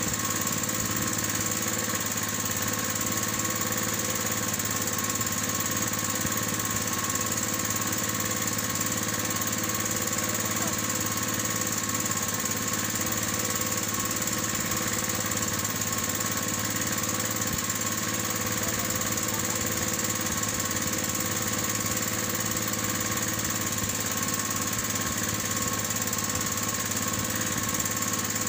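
Small engine running steadily at a constant speed.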